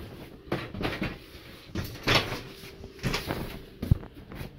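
A series of knocks, bumps and rustles as a plastic folding table is carried and handled, the loudest bump about two seconds in and a short sharp click near the end.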